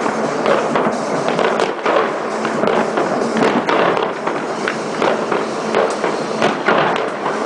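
Many fireworks and firecrackers going off at once: a dense, unbroken crackle of pops and bangs.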